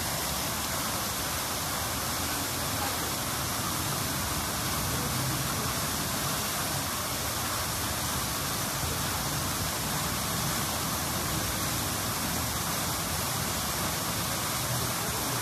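Jetting pond fountains splashing, a steady, even rushing hiss of falling water.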